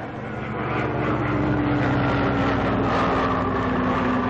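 Propeller airplane's piston engines droning, swelling in over the first second or so and then holding steady, the pitch sinking slowly.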